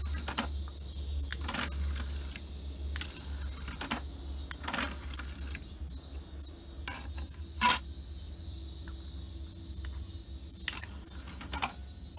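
Clicks of a Yamaha CDX-10 CD player's front-panel tactile switch being pressed, with the disc tray mechanism moving out and back in; the replacement switch responds well. The loudest is one sharp click about two thirds of the way through.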